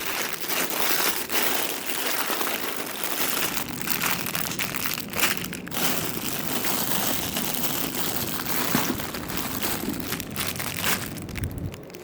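Packaging crinkling and rustling as jewelry is handled and pulled from a box, almost without let-up apart from a short pause about halfway through.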